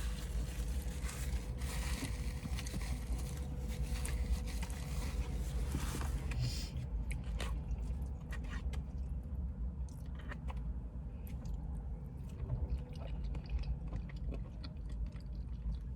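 Poutine being eaten: chewing, biting and a utensil scraping and clicking in the takeout container, over a steady low rumble. A broad hiss stops about six and a half seconds in, leaving scattered small clicks.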